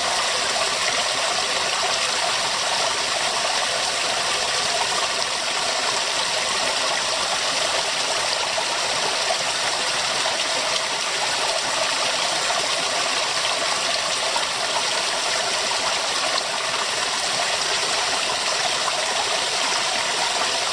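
River water running over rocks in a steady, continuous rush with fine splashing.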